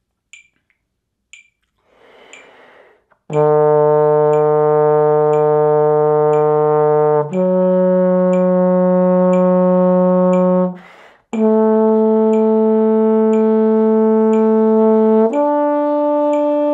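Trombone playing a D major arpeggio upward in whole notes (D, F sharp, A, then the octave D), each note held about four seconds with short breaks between them, over a metronome ticking about twice a second. A breath is drawn just before the first note, about three seconds in.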